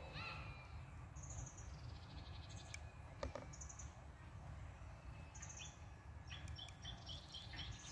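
Small birds chirping in the background: short high trills and, near the end, a run of quick repeated notes, over a steady low rumble, with a couple of faint clicks.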